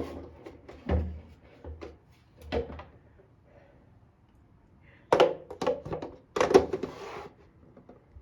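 Plastic toothbrush holder being fitted onto its adhesive wall mount: a couple of soft thumps, then a quick run of sharp plastic knocks and clicks with a brief scrape as it is pushed into place.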